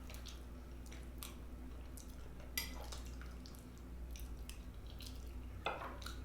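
Close-up eating sounds: wet chewing with scattered small clicks and lip smacks at irregular intervals, over a low steady hum.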